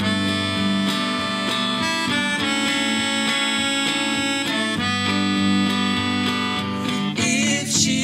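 Song intro on a Rickenbacker electric guitar strumming chords under a harmonica melody. A woman's voice comes in singing about seven seconds in.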